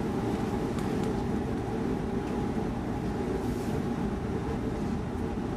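Steady low hum and rumble inside an X10 electric commuter train car as it stands at a platform.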